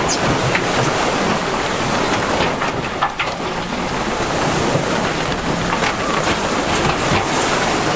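Komatsu bulldozer at work: a steady, loud rushing engine and track noise with a few short clanks.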